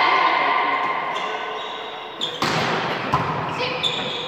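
A volleyball rally: one sharp hit of the ball about two and a half seconds in, over voices of players and spectators in the hall.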